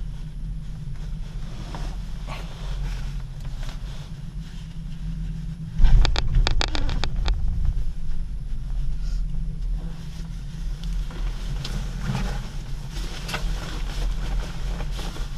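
Gondola cable car cabin running along the rope with a steady low rumble, heard from inside the cabin. About six seconds in comes a burst of rapid clattering and the rumble grows louder as the cabin rolls over a support tower's sheave train.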